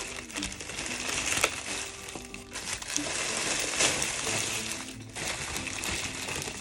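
Packaging crinkling and rustling as a parcel is handled and unwrapped, with sharp crackles, over soft background music.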